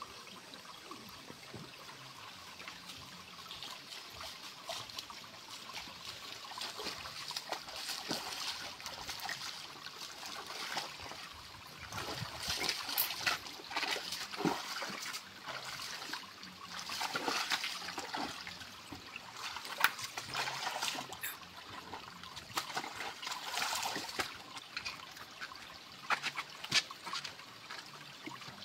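Shallow river water trickling over rocks, with scattered scuffs, steps and knocks on stones and dry leaves that get busier about halfway through.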